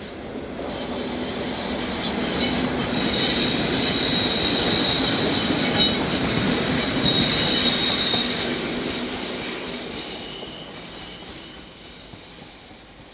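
English Electric Class 37 diesel locomotive passing, its V12 engine growling as it draws near, loudest midway, then fading away. High steady wheel squeal rings out from the rails as it goes by.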